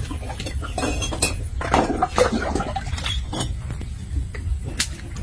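Hollow clay bricks clinking and knocking against one another and the plastic basin as they are picked up and handled, in a few scattered knocks.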